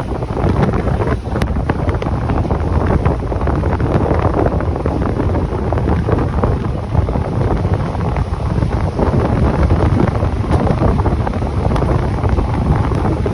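Wind rushing hard against the microphone from a moving train, over the train's steady running rumble, with a few faint clicks.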